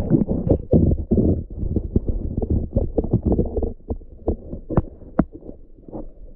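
Muffled, irregular knocking and bubbling picked up by an action camera submerged under lake ice, the housing and cord jostled in the water. The knocks come thick for about four seconds, then thin out and grow quieter, with two sharper knocks near the end.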